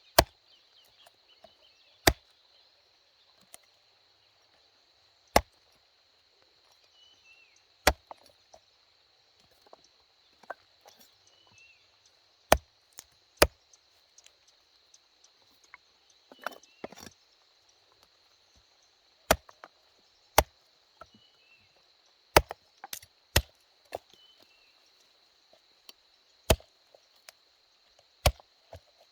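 Chopping: single sharp strikes, irregularly spaced one to three seconds apart, with a steady high-pitched hum underneath.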